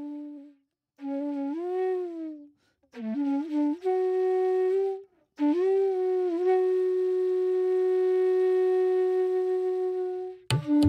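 Background music: a solo flute plays a melody with bending, sliding notes, then holds one long steady note. Percussion strikes come in near the end.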